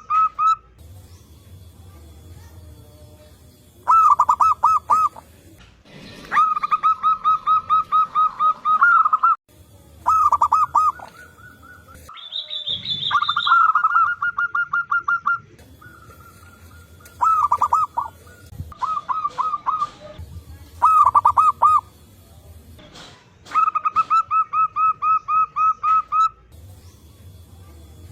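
Zebra doves (perkutut) cooing, with several birds answering one another. Each phrase is a run of fast, pulsing coo notes, and the phrases come every few seconds. About halfway through there is a brief higher-pitched call.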